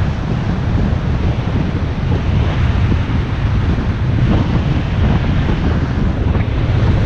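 Wind buffeting an action camera's microphone in a steady low rumble at about 15 km/h, over surf washing onto the beach.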